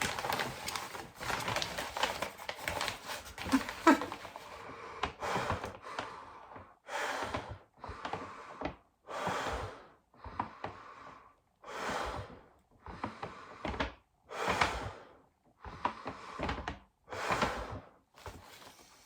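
Breathing in and out of a small paper bag as a hiccup remedy. The bag crinkles and rustles as it is handled over the first few seconds, then comes a steady run of breaths, each a short noisy rush, about one a second.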